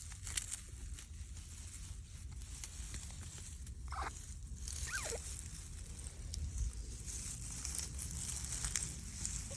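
Greek tortoise giving two short squeaks about a second apart, the second falling in pitch, over a faint rustling hiss.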